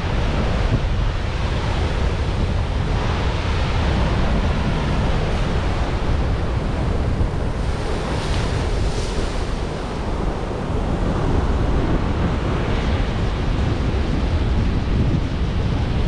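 Heavy ocean surf breaking on rocks, a continuous wash and rumble of churning white water with a brighter crash about eight seconds in. Wind buffets the microphone throughout.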